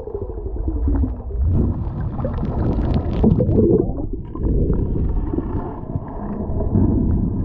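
Muffled underwater rumble and sloshing from a camera held beneath the sea surface, with a spell of bubbling and crackling about two to three seconds in.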